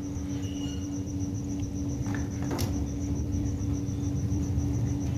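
Insect chirping in an even, rapid pulse, typical of a cricket, over a steady low hum, with a single sharp click about halfway through during the wire work.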